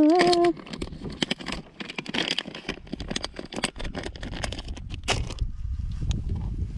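Clear plastic bag of red soft-plastic fishing lures crinkling and crackling as hands pull lures out of it. The crackling stops about five seconds in, leaving a low rumble.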